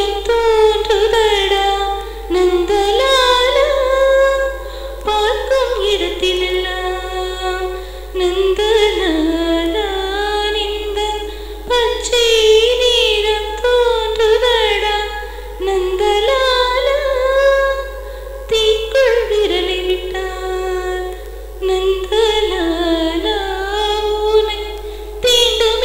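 A woman singing a song unaccompanied, in melodic phrases with held and gliding notes and short pauses between them.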